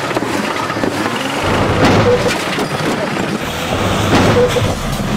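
A wrecked sedan driving along a road, its engine running steadily, with sharp knocks about two seconds and four seconds in.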